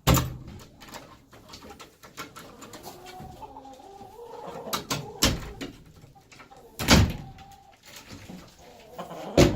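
Chickens clucking and murmuring softly in a coop, broken by four sharp knocks and clatters as the coop's windows are pushed open.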